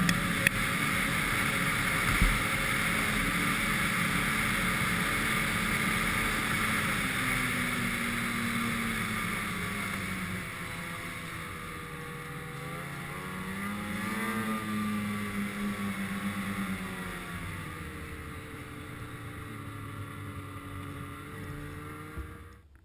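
A snowmobile engine running under way, with wind and track noise. Midway the engine pitch rises and then falls again as the revs go up and ease off. The sound cuts off suddenly just before the end.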